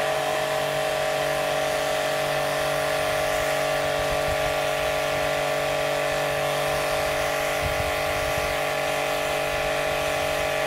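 StarQ W3 1800-watt electric pressure washer running under load, its motor and pump giving a steady, unbroken whine, with the hiss of the high-pressure water jet spraying a wall.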